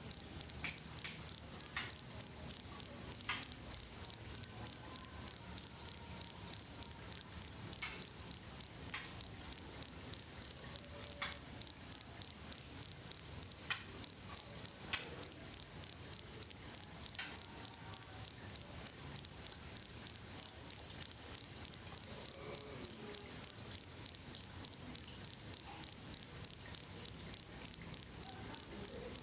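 A cricket chirping steadily: short high-pitched pulses on a single clear tone, about three a second, in an even unbroken rhythm.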